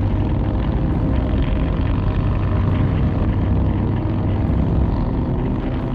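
Harley-Davidson V-twin motorcycle engine running steadily at cruising speed under a rider on the road, a low even drone with a rushing noise over it.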